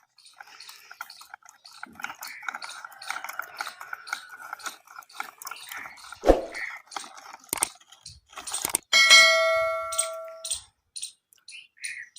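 Clicking and clattering of toy construction vehicles being handled and moved, with a thump about six seconds in. About nine seconds in, a bell-like ding rings out and fades over a second and a half.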